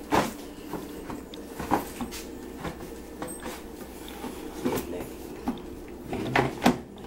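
Chefman air fryer's plastic basket being handled and slid back into the fryer, giving a few hard plastic knocks and clicks. The loudest come right at the start and as a quick cluster near the end.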